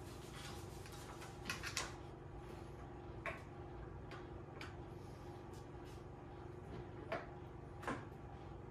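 Light clicks and taps of small parts being handled and fitted onto an XTool D1 laser engraver's frame, a quick cluster of three about a second and a half in and single ones later, over a steady background hum.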